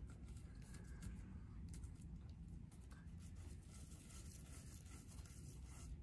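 Faint, soft scratching and dabbing of a bundle of paint-dipped drinking straws pressed onto paper to stamp firework shapes, over low room hum.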